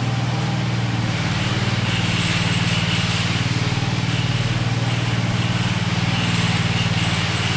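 Power trowel engine running at a steady, constant speed as the machine works over a setting concrete slab.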